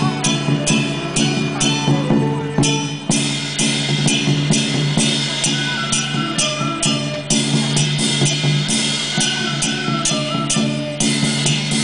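Drum-led temple ritual music: drums and other percussion strike a steady beat, about two to three strikes a second, under a held low drone and a stepping melody.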